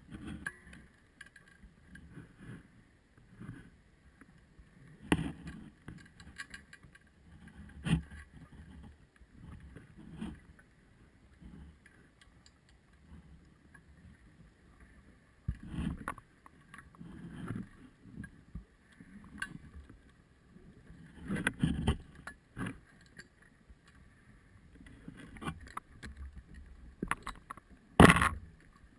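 Underwater recording: irregular surges of rushing, bubbling water noise every few seconds, the loudest near the end, over a faint steady high whine.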